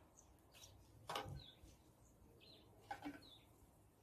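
Faint bird chirps, short high notes falling in pitch, about four of them, over a quiet background. There are a couple of soft rustles as a sage plant is handled in its plastic nursery pot, about a second in and again near three seconds.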